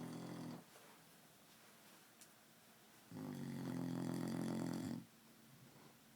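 A man snoring loudly, one pitched, buzzing snore on each breath: the tail of one snore at the very start, then a lull, then a second snore of about two seconds beginning about three seconds in.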